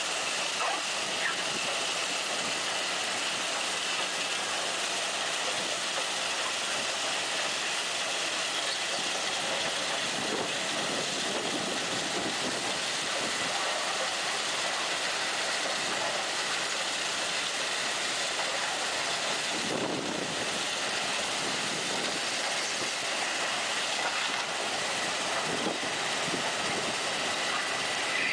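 Loram SBC-10 shoulder ballast cleaner working on the track: a steady, even machine noise of the working rail machine, with a faint steady high whine.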